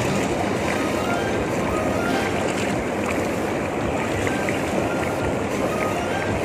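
Pool water churning and bubbling steadily around a swimmer, close to the microphone.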